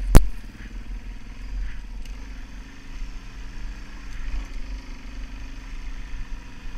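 Suzuki DR-Z400S single-cylinder four-stroke dual-sport engine running steadily as the bike climbs a steep grassy hill, with low wind rumble on the helmet-mounted microphone. A single sharp click comes just after the start.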